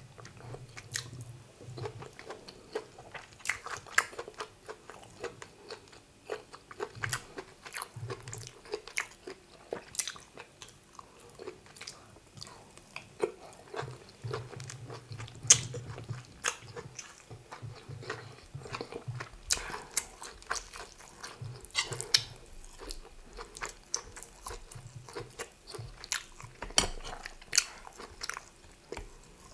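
A person chewing a mouthful of egusi soup and rice: irregular wet mouth clicks and smacks, with now and then a louder bite.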